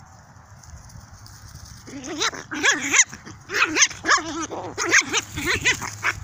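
Small dogs yapping and yelping as they scuffle and play-fight: a quick run of about ten short, pitched calls that starts about two seconds in.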